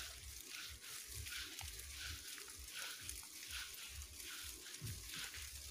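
Footsteps walking on a grassy path at about two steps a second, each a soft thud with a brief swish of grass.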